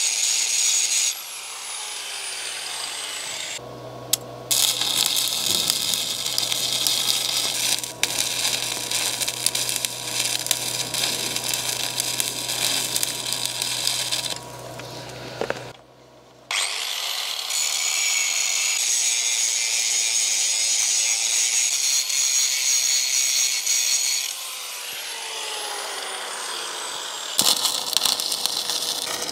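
Angle grinder on steel hull plate, winding down about a second in. Then a stick-welding arc crackles for about ten seconds over a low hum. After a short break a grinder spins up, runs for several seconds and winds down, and another weld starts near the end.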